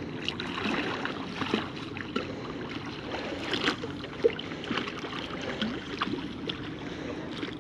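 Water splashing and sloshing, broken by many small irregular clicks and gurgles.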